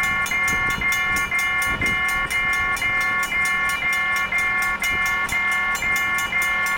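A warning bell ringing rapidly and evenly, about four strokes a second, over the low rumble of a passing freight train.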